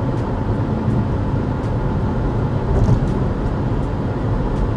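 Steady road and engine noise inside a BMW's cabin, cruising at about 100 km/h in sixth gear: a low, even tyre and drivetrain rumble.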